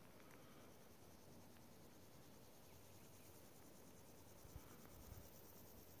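Faint high-pitched insect chorus from the pine forest, a fast, even pulsing chirr. A couple of soft low thumps come about four and a half and five seconds in.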